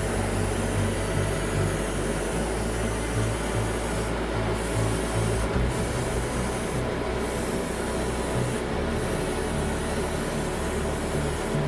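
Airbrush hissing as it sprays grey primer, the hiss briefly letting up several times.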